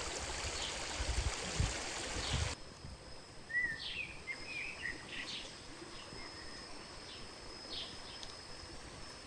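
Outdoor ambience: a steady rushing hiss like running water, which cuts off abruptly about two and a half seconds in. A quieter background follows, with small birds chirping in short calls over a faint steady high insect whine.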